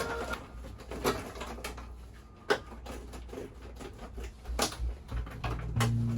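Scattered light clicks and knocks of hand work, with sharper ones about one, two and a half and four and a half seconds in.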